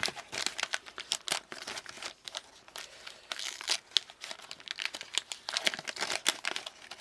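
Wax paper wrapper of a trading card pack crinkling as it is worked open by hand, in quick irregular rustles.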